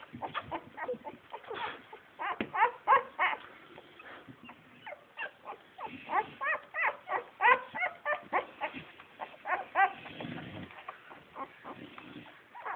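Newborn bull terrier puppies squeaking and whimpering in quick runs of short, high cries that bend up and down in pitch, with a brief low rustle about ten seconds in.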